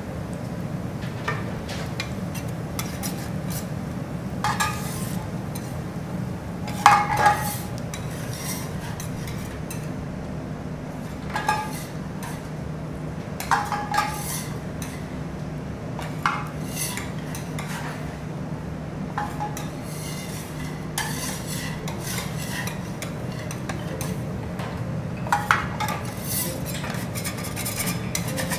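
Metal spatulas scraping and clinking against a hot steel teppanyaki griddle, in separate strokes a few seconds apart, as water and cooking residue are scraped off to clean it. A steady low hum runs underneath.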